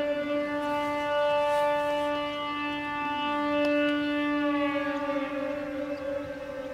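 413/455 series electric train moving through the switchback, giving a steady siren-like mechanical whine that rises slightly in pitch midway and then eases down.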